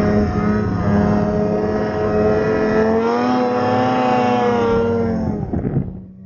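Ski-Doo Summit X two-stroke snowmobile engine running hard under throttle in deep powder, its pitch rising a little midway. Near the end the throttle comes off and the engine winds down quickly.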